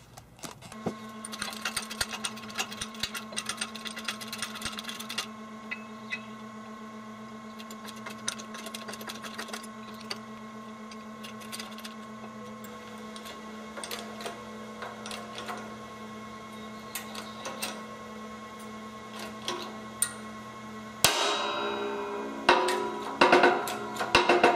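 Small metal clicks and taps as a moped gear and its shaft are handled and set up in a shop press, over a steady low hum. About three seconds before the end, louder, busier metal-on-metal clanking.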